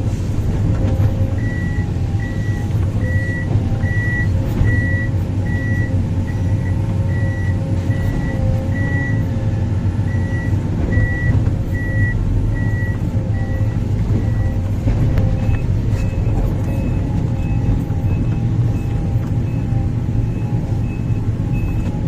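Heavy construction machinery's diesel engine running steadily under a backup alarm beeping a little over once a second. About two thirds of the way through, the beeps switch to a higher-pitched alarm at the same rate.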